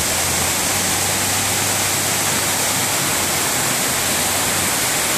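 Heavy rain pouring down in a tropical downpour, a dense steady hiss. A faint low hum runs beneath it and stops near the end.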